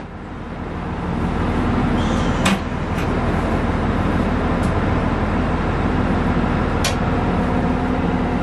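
Diesel railcar running, its low engine hum and running noise building over the first couple of seconds and then holding steady, with a few sharp clicks, one near the start, one about two and a half seconds in and one about seven seconds in.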